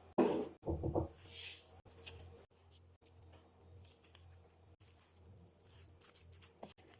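Food-prep handling sounds: a few loud knocks and a short rustle in the first second or so, then faint, irregular scraping and clicking of a utensil against a bowl or board.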